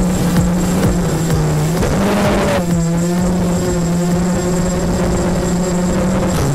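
A mini racing quadcopter's electric motors and propellers whirring in flight, as heard from the quad's onboard camera. The pitch dips and shifts about two seconds in as the throttle changes.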